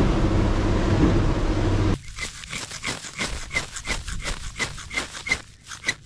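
A motorboat running at trolling speed, with engine hum, wind and wake wash. About two seconds in it cuts off abruptly to a quick series of short scraping strokes, about three a second: a fire steel being struck over dry grass tinder to light a fire.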